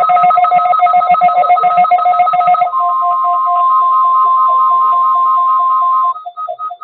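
NOAA Weather Radio warning alarm: a steady 1050 Hz tone, with an alert receiver's rapid, pulsing two-pitch beeping over it. The beeps are loudest for the first few seconds. The steady tone cuts off about six seconds in while the pulsing beeps go on.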